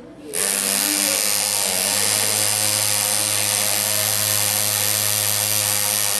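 Andu pneumatic engraver's handpiece hammering a graver into a metal engine cover as the design is cut: a steady, loud buzz that starts abruptly just after the beginning.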